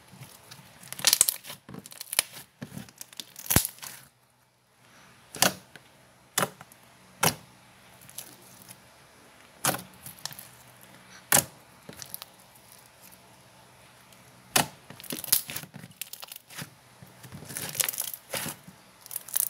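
Brown slime with small bits mixed in, stretched, poked and squeezed by hand, giving irregular sharp pops and clicks, with a dense run of them near the end.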